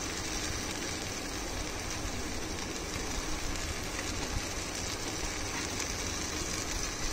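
Onion, tomato and ginger-garlic masala sizzling steadily as it fries in ghee in a pan on low heat.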